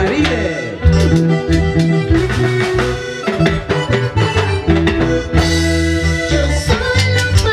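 Live band playing a huayno with a steady beat: electric bass, keyboard, acoustic guitar and drum kit.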